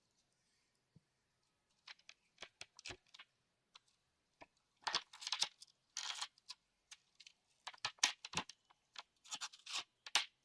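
Gaming mouse packaging being opened and handled: an irregular run of sharp clicks and short rustling noises, sparse at first and busier from about five seconds in.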